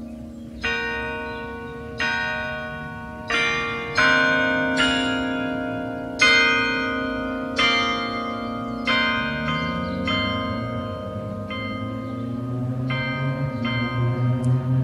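Carillon bells playing a slow melody, about a dozen single notes struck roughly once a second or a little slower, each ringing on under the next. In the last few seconds a low hum grows louder underneath.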